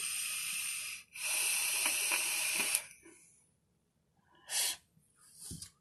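Hiss of air and vapour through a Kylin RTA vape, in two long pulls of about a second and a half each, then one short puff about four and a half seconds in.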